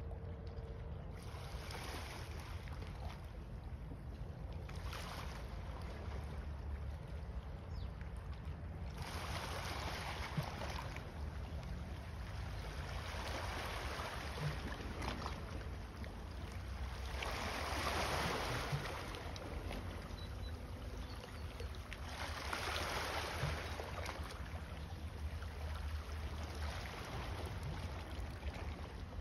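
Small waves washing against a rocky shore, swelling and fading every few seconds over a steady low rumble.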